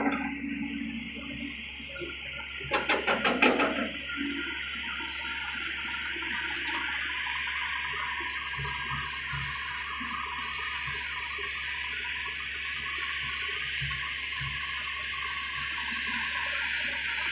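Steady running noise of a working hydraulic excavator, an even hiss with no clear engine beat. About three seconds in comes a quick rattle of about half a dozen sharp knocks, the loudest sound here.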